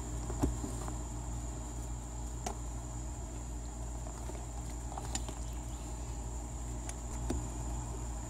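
Steady background hum with a thin, constant high-pitched whine, and a few faint clicks and taps as the rubber shifter boot and small parts are handled on the floor pan.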